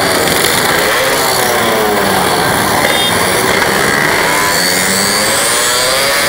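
Several motorcycle engines revving and riding past close by, their pitches rising and falling over one another in a steady, loud din.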